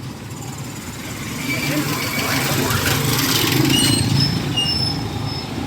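A motor vehicle passing close by: its engine hum grows louder to a peak three to four seconds in, then fades. Short high-pitched chirps sound over it.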